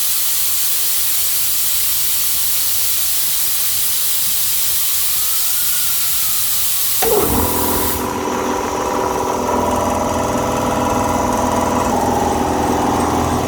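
Compressed air hissing steadily out of an air compressor's system as its pressure drops. About seven seconds in, the pressure switch cuts in at 100 and the electric compressor motor starts through its magnetic contactor, running steadily. The contactor's buzz, caused by an oxidised core that has since been cleaned, is gone. The hiss stops about a second after the motor starts.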